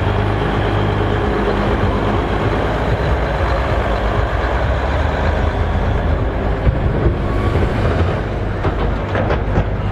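Case IH Magnum 7120 tractor's six-cylinder Cummins diesel running steadily as the tractor drives slowly past close by.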